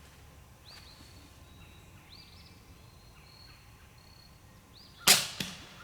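A few faint bird chirps over a quiet background, then, about five seconds in, a single sharp shot from a .22 break-barrel spring air pistol being fired.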